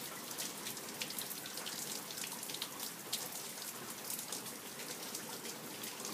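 Rain falling steadily, with many individual drops striking in sharp little clicks over an even hiss.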